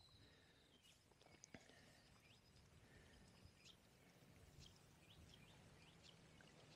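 Near silence: faint outdoor ambience with a few scattered, faint high chirps.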